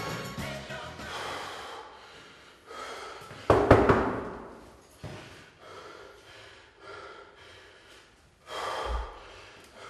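Music fades out in the first second or two, then a man gasps and breathes heavily, with a sudden loud thump about three and a half seconds in.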